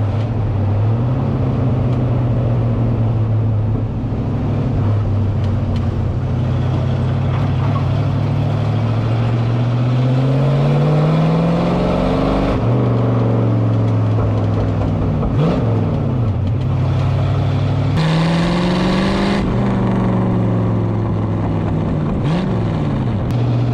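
A 1938 Chevrolet coupe dirt-track race car's engine pulls hard while driving on the road, heard from the stripped cabin. Its revs climb and then drop sharply at the gear changes, several times, over wind and tyre noise.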